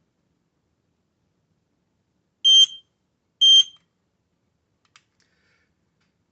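Aegislink S-RF220 wireless smoke alarm giving two short, high-pitched test beeps about a second apart as its test button is held. The unit is not yet paired to the interconnected group, so it sounds alone.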